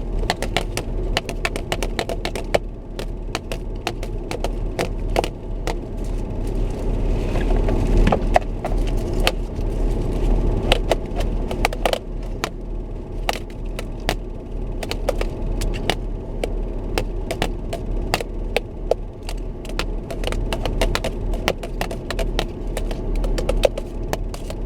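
Low steady road rumble inside a moving car, with frequent sharp clicks and crackles throughout.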